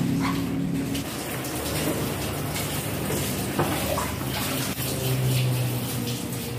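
Water running steadily from a hose into a bucket, with a low steady hum underneath and a single short knock about halfway through.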